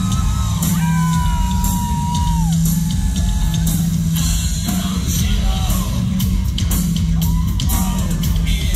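An industrial rock band playing live, with heavy, distorted bass, steady drums, electronics and yelled vocals.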